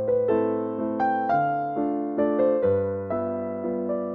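Background piano music: a slow melody of struck notes, about two a second, each ringing and fading over soft chords.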